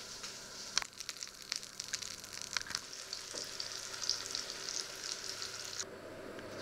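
Apple slices sizzling in hot fat in a frying pan, a steady hiss full of crackling pops. The sizzle cuts off abruptly near the end, leaving a duller steady noise.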